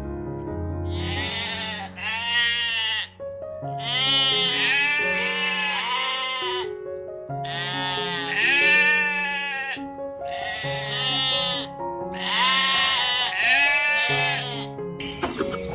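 Goat bleating again and again: a series of drawn-out bleats, several in close pairs, over soft background music.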